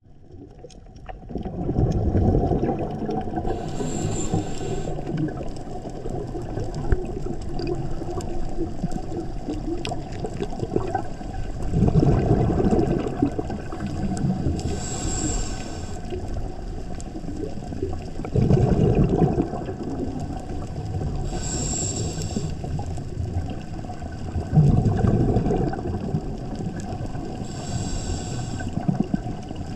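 Scuba diver breathing through a regulator, recorded underwater: a short hiss with a thin whistle on each inhale, then a low rumble of exhaled bubbles, about four breaths in all.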